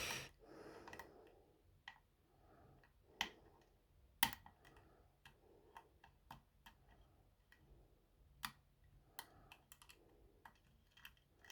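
Faint, irregular metal clicks of a hook pick probing the pin stack of a Carl F lock, checking that the picked pins are still set, with sharper clicks about three and four seconds in and again near the middle.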